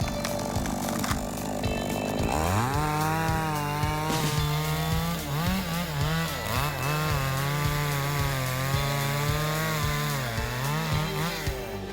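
Chainsaw engine revving up about two seconds in and running at high speed, its pitch dipping briefly several times as it bogs in the cut.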